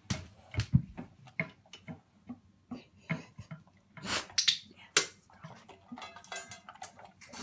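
Australian shepherd lapping water from a raised stainless steel bowl, about three laps a second. A few louder, sharper sounds come around four to five seconds in.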